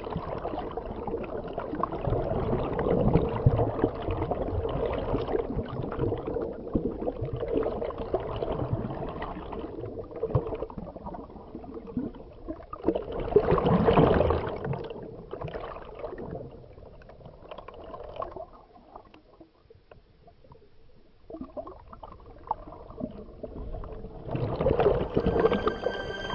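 Rushing, gurgling water heard through an underwater camera just below the surface, with a faint steady hum. It swells loudest about halfway through and drops away for a few seconds after that.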